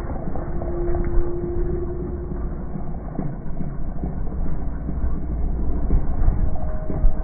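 HPI Baja 5T 1/5-scale RC truck's small two-stroke petrol engine buzzing as the truck jumps and wheelies, holding a steady pitch at first and a higher one near the end. A knock near the end as the truck lands and tumbles over.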